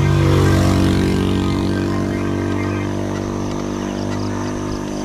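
A motor vehicle engine running at a steady speed, starting abruptly and slowly easing off.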